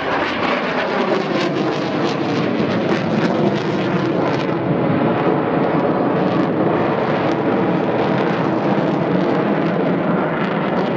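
Transall C-160 twin-turboprop transport flying low overhead: a steady, dense engine and propeller noise, with a faint falling pitch in the first few seconds as it passes.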